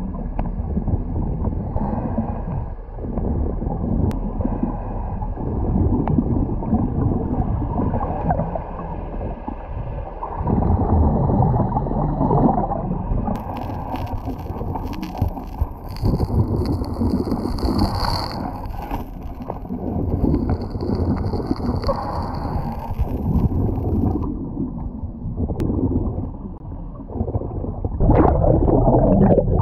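Underwater gurgling and rushing from a geoduck diver's air bubbles and the water-jet stinger used to dig geoducks out of the sand, with a thin high whistle twice in the middle.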